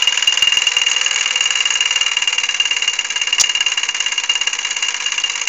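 Mamod Minor 1 toy steam engine running, its oscillating cylinder chuffing rapidly and evenly with a steady high ring. It is running weaker than its usual fast pace, not performing very well.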